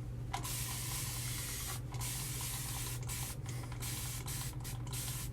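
Tap water running into a sink as the face is rinsed after a shave, the hissing stream broken off briefly several times.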